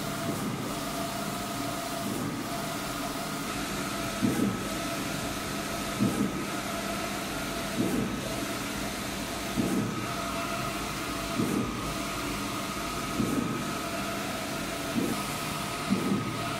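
Large-format inkjet printer running as it prints a banner: a steady mechanical hum with a high whine, and from about four seconds in a short knock repeating about every two seconds.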